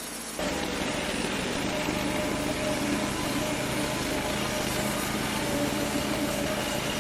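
Wood-Mizer LT35 portable band sawmill running steadily, its engine drone carrying several steady pitches; the sound comes back in sharply about half a second in after a brief quieter moment.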